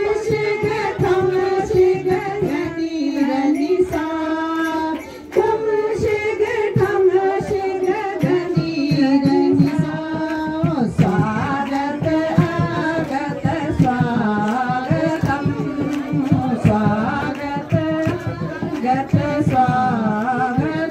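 A group of women singing together in unison, one melody line held without a break, with hand-clapping ticking along under it.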